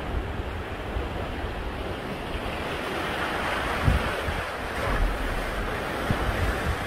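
Sea waves washing and surging in a narrow rock gully below the cliffs, a steady rushing noise. Wind buffets the microphone in gusts, the strongest about four seconds in.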